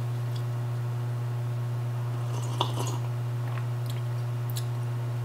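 Steady low hum with a few faint clicks and quiet mouth sounds of someone sipping hot hotel coffee, the clearest about two and a half seconds in.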